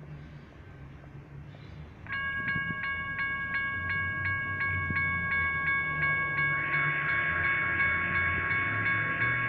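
Railroad crossing's General Signals Type 1 electronic bell starts about two seconds in and rings a steady, rapid ding, about three strikes a second, as the crossing activates. About two-thirds of the way through the ringing grows louder and fuller.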